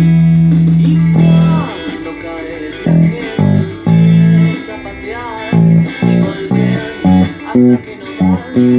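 Precision-style electric bass played fingerstyle: a held low note that stops about one and a half seconds in, then a run of short, separate plucked notes about two a second. Other music with a wavering higher melody goes on between the bass notes.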